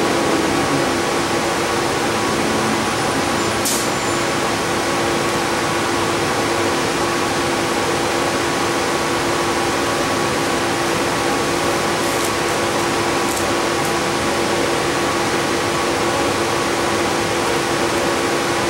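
Steady drone inside a city transit bus standing with its engine idling and its ventilation fans running, with a few faint high clicks.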